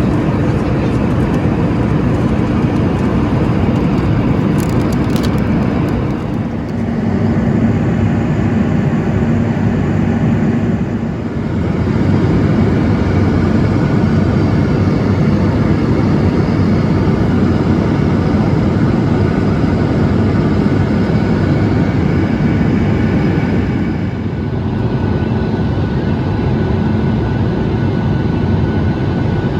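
Steady jet engine and airflow noise inside the cabin of a Boeing 737 MAX 8 with CFM LEAP-1B engines. The noise changes abruptly a few times, about a fifth of the way in, about a third of the way in and again near the end.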